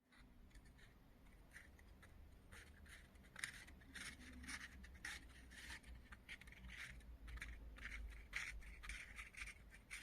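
Faint, irregular scratching and scraping: many short scratches close together, busier in the second half, over a low steady hum.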